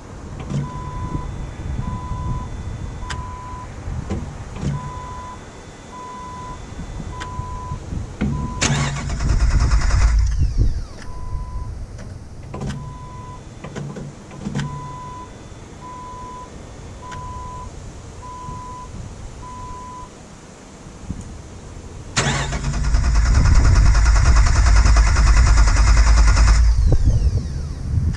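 Jeep Wrangler TJ's starter cranking the engine twice on starting fluid, first for about two seconds, then for about five seconds, without it catching: the engine won't start. Between the cranks a dashboard warning chime beeps about once a second.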